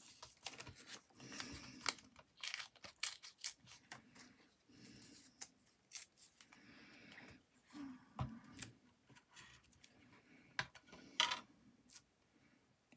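Scissors snipping paper in short irregular cuts, with paper rustling between them as small scraps are handled.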